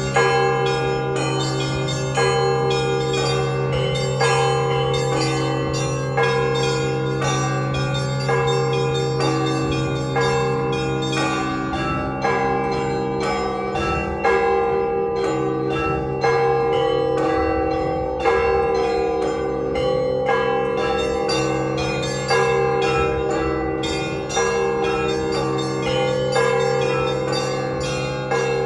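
Orthodox church bells rung together in a peal marking the end of a service. A deep bell is struck about every two seconds under rapid, repeated strikes on smaller bells, all ringing on into one another.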